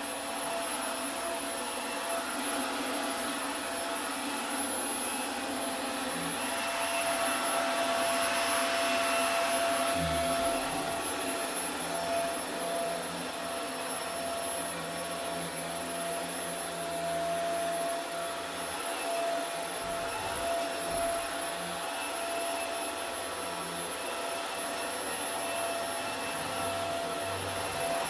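Vacuum cleaner running steadily with a constant whine, with a few soft low bumps about ten and twenty seconds in.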